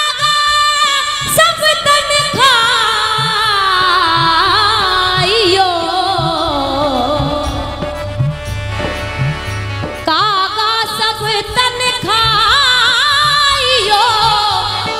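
Live devotional bhajan music: a wordless melody with wavering, gliding pitch that winds downward, then starts a new phrase about ten seconds in, over a steady low drum beat.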